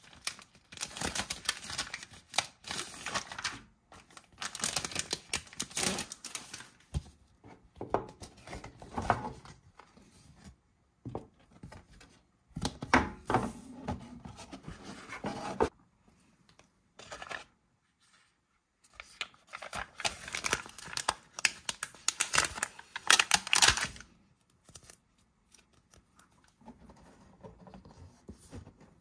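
Clear plastic bag crinkling and rustling as a cardboard sticker-scene folder is slid out of it, then stiff card rubbing and flexing as the folder is opened out. The sounds come in irregular bursts with short quiet pauses between them.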